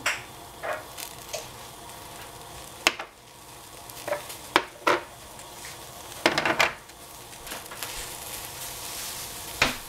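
Shredded salad greens sizzling in a hot stainless steel pot as they cook down, a steady hiss broken by several sharp clicks and knocks, with a quick cluster a little past the middle.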